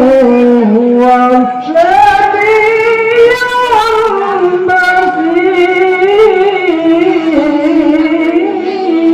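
A male qari reciting the Qur'an in one long, unbroken melodic phrase, dry and without added echo. The voice slides up to a higher held pitch about two seconds in, ornaments there, then winds back down near the end.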